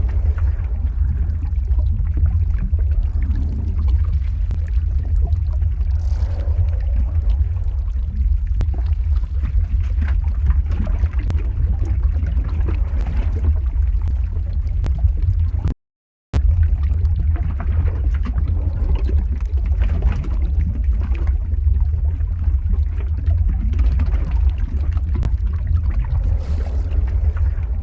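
Lava-flow ambience sound effect: a steady deep rumble with irregular crackling and hissing over it. It cuts out completely for about half a second near the middle, then resumes the same.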